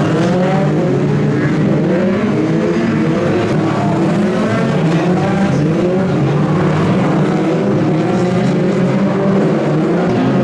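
A pack of BriSCA F2 stock car engines racing together, several engines revving up and down over one another with no break.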